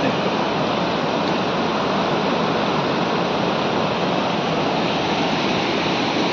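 River rapids: fast brown water rushing steadily over and between rocks.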